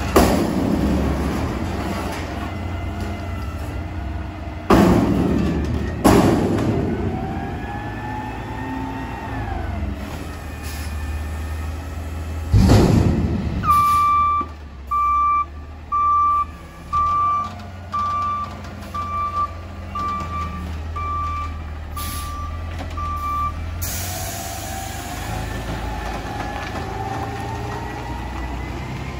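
Natural-gas Peterbilt 520 front-loader garbage truck with a McNeilus Contender body emptying a dumpster. Hard metal bangs come at the start and again about five and six seconds in as the raised container is shaken against the arms, and a heavy clunk follows just before the halfway point as it is set back down. Over the running engine and the whine of the hydraulic pump, the reversing beeper then sounds about a dozen evenly spaced beeps, and the engine rises near the end as the truck pulls away.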